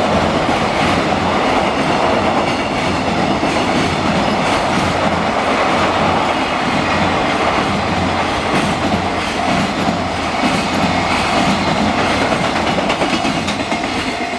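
Train passing close by: a steady, loud rumble of wheels over the rails with a clickety-clack, easing slightly near the end.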